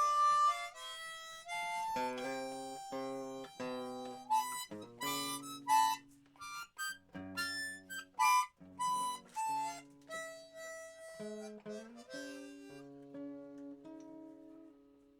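Harmonica playing a melody of chords and single notes, with guitar accompaniment; near the end the notes are held longer and grow quieter.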